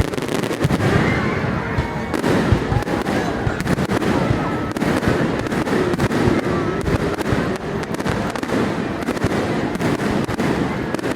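Fireworks display: a dense, continuous run of bangs and crackling from bursting shells, with no break.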